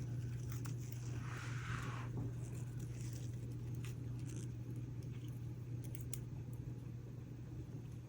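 Faint handling sounds of a dried daisy being placed into a resin-filled mold: a brief soft rustle about a second in and scattered light clicks, over a steady low hum.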